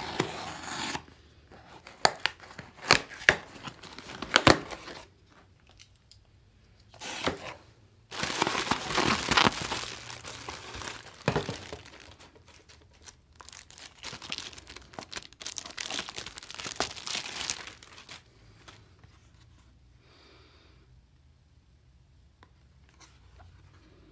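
Packaging being torn open and handled by hand: tearing and crinkling with sharp clicks and knocks. It is loudest in a long tearing stretch about eight to eleven seconds in and dies down after about eighteen seconds.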